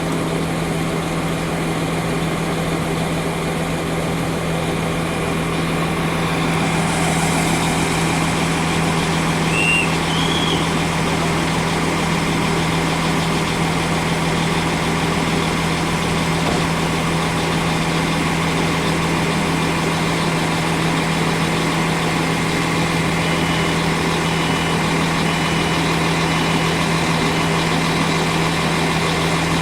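Diesel train engine idling steadily, a constant low hum with no revving.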